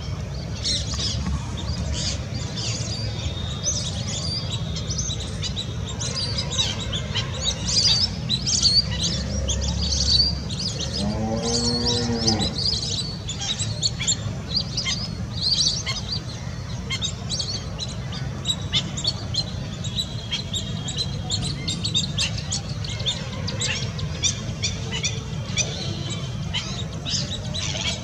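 Lesser whistling ducks giving a continuous chatter of shrill, high whistled twitters. A lower, drawn-out call comes about eleven seconds in, and a steady low rumble runs underneath.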